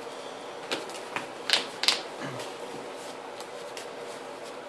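Yu-Gi-Oh trading cards being handled and put down on the table during play: four short, sharp clicks and taps within the first two seconds, then quieter handling over a faint steady hum.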